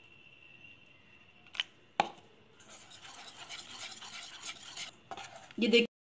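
Wire whisk beating a thin gram-flour batter in a stainless steel bowl: a wet swishing stir, with two sharp metallic knocks about one and a half and two seconds in.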